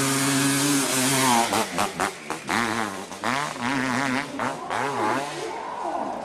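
Off-road motorcycle engine at high revs on a steep dirt hill climb: held steady at first, then the pitch swings up and down again and again as the throttle is opened and closed.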